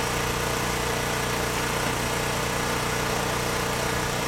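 Steady low mechanical hum of a running engine, holding an even pitch and level without change.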